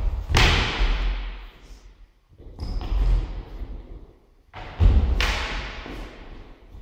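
Wooden sparring cudgels knocking together, and heavy thuds and scuffs of feet lunging and stepping on a wooden floor, in three surges a couple of seconds apart.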